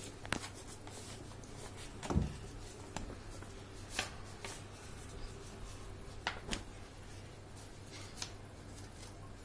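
Paper being handled and folded by hand: scattered rustles and crinkles, with a soft bump about two seconds in.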